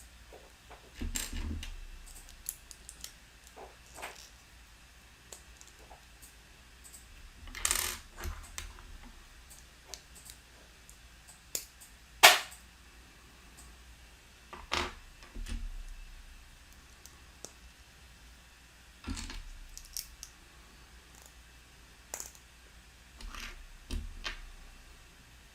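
Small plastic building-block pieces clicking and clattering as they are handled and fitted together: scattered sharp clicks and short rustles at irregular intervals, some with a soft thud against the table, and one louder click about twelve seconds in.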